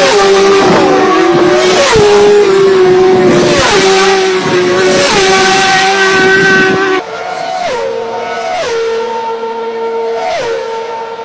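Racing motorcycles passing close at high speed one after another, each engine note falling in pitch as it goes by. About seven seconds in it switches to a quieter, more distant racing engine holding a steady high note that drops in steps a few times.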